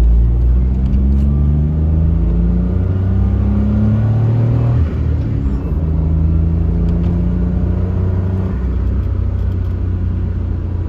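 Suzuki Jimny JB23's 660 cc turbocharged three-cylinder engine pulling hard, heard from inside the cabin: its note climbs steadily, drops suddenly about five seconds in at an upshift, then rises again under steady throttle, over road noise.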